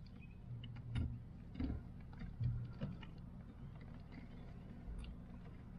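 Faint clicks and knocks from a wiring connector being handled and fitted at the clutch pedal switch, a handful of separate small taps.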